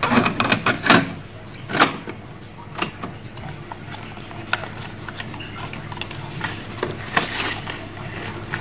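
Clicks and knocks of a plastic cassette case and its paper inlay card being handled on a wooden table, several in quick succession at the start and then scattered, with a brief rustle of the inlay card being unfolded near the end.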